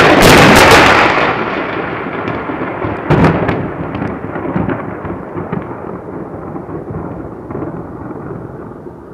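Thunder from a close lightning strike: it opens with a very loud crack, and a second sharp crack comes about three seconds in. A long rumble then fades away steadily.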